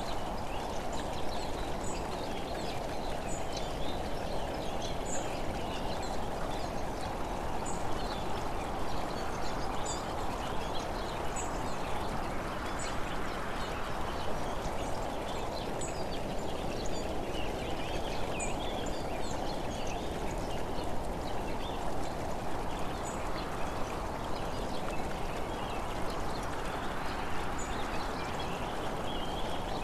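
Steady rushing wind and road noise on the microphone of a vehicle moving along an open road, swelling and easing slowly, with faint short bird chirps every couple of seconds.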